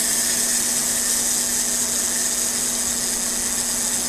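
Polaroid SX-70 clockwork self-timer running after being set, a steady high buzzing whir.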